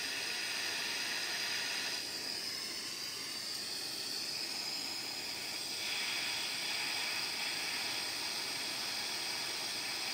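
Handheld gas torch running with a steady hiss, its flame playing on a small steel bolt and bracket to heat them for soldering. The hiss softens a little about two seconds in and comes back up around six seconds.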